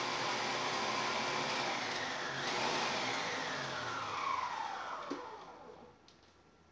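A small electric appliance motor whirring steadily, then winding down with a falling whine and stopping about five to six seconds in.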